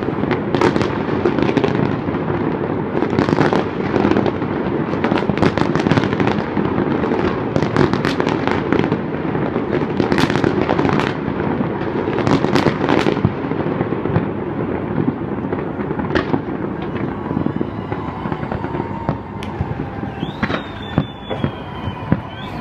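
Fireworks display: a dense run of booming bangs and crackling over a continuous rumble, thinning to scattered pops after about 14 seconds, with a short high whistle near the end.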